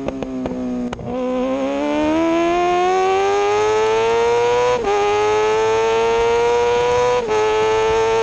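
On-board sound of a 2003 Yamaha R6's inline-four engine through a cut-short Akrapovic exhaust. For about the first second the revs fall with sharp popping and crackling off the throttle. Then the engine pulls hard with the revs rising steadily, broken by two quick upshifts, about five and about seven seconds in.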